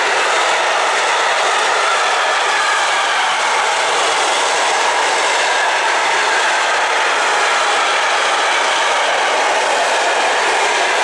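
Container flat wagons of a freight train rolling past close by: a loud, steady rush of steel wheels on rail.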